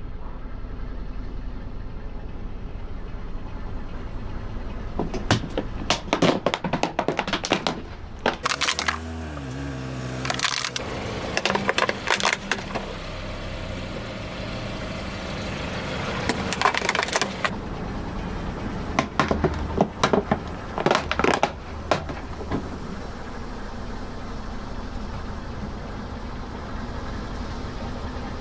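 Car tyres rolling over and crushing brittle objects: four bursts of cracking and crunching, each one to three seconds long, over the low steady running of the car's engine.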